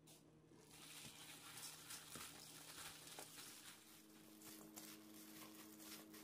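Faint rustling and light crackling of julienned radish being tossed with red pepper powder by a plastic-gloved hand in a stainless steel bowl, starting about a second in, over a low steady hum.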